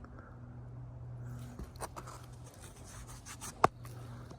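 Soft rubbing and handling of small metal thimbles in the hand, with a few faint clicks and one sharp click about three and a half seconds in.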